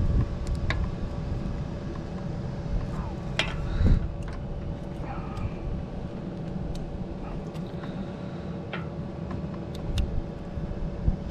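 Scattered small clicks and taps from hands working a cable gland's lock nut and rubber grommet onto a thick Ethernet cable, over a steady low rumble.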